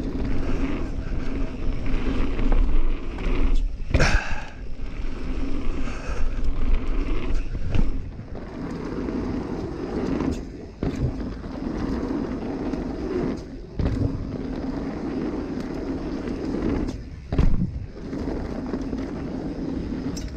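Mountain bike ridden fast down a dirt trail: a steady rush of knobby tyres rolling on dirt and of air past the camera, broken by a few sharp knocks and rattles from the bike as it hits bumps, the biggest about four seconds in.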